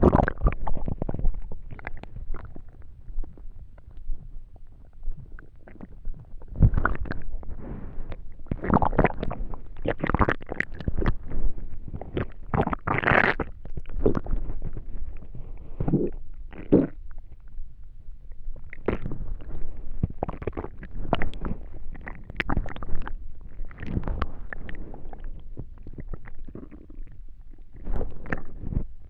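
A person's stomach rumbling and gurgling during digestion: an irregular string of gurgles and squelches, the loudest about halfway through.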